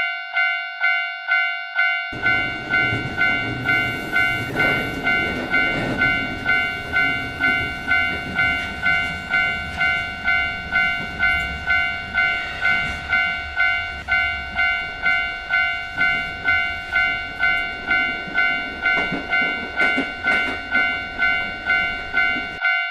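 Japanese level-crossing warning bell ringing "kan-kan" about twice a second, with a passing train's running rumble coming in about two seconds in and cutting off abruptly just before the end.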